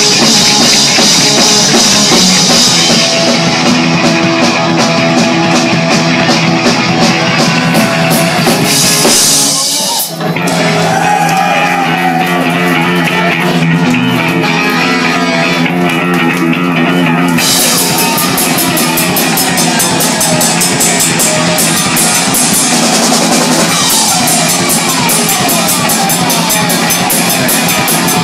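Punk rock band playing live and very loud: bass guitar, electric guitar and a drum kit. The band stops briefly about ten seconds in, then comes back in.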